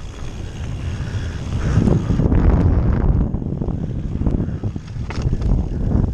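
Wind buffeting the microphone over the rumble of a mountain bike's tyres on a dirt trail, with scattered rattling knocks from the bike, getting louder about two seconds in.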